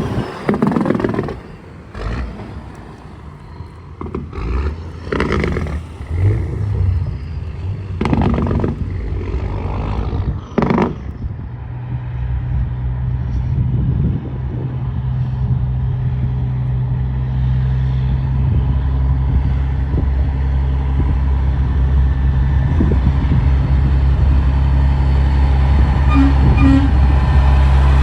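Road traffic with trucks going by: a few short clatters in the first half, then a heavy engine's steady low drone that slowly grows louder.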